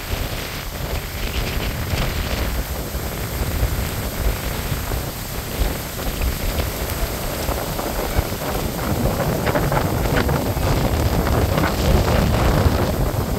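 Gusty storm wind buffeting the microphone, with a steady hiss over an uneven rumble that grows a little stronger near the end.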